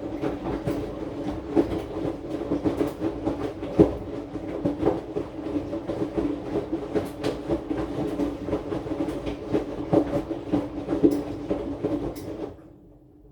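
AQUA AQW-DX12M drum washing machine running with its drum turning, a steady motor tone under irregular knocks and rattles, picked up through the machine's top. It stops about twelve and a half seconds in, leaving only a faint hum.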